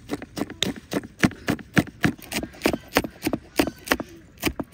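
Knife chopping green chillies, quick even strokes about four a second, which stop near the end.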